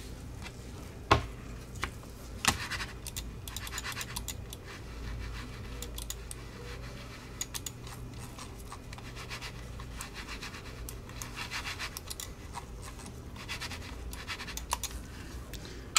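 Logitech G Pro X Superlight mouse being slid back and forth on a mousepad during a function test, its feet making a quiet scraping, with scattered sharp clicks, the loudest about a second in.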